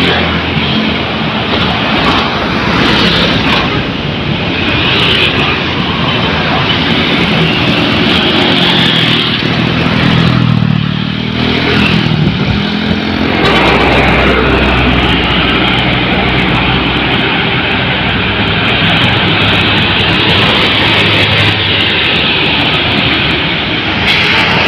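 Dense road traffic passing close by: engine and tyre noise throughout. About eleven seconds in, one vehicle's engine note drops in pitch as it goes past, and a deep engine rumble follows from about fourteen to seventeen seconds.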